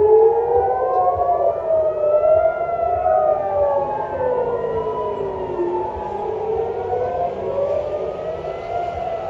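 Several civil-defense air-raid sirens wailing at once, each rising and falling slowly in pitch, out of step with the others: the warning of an incoming missile.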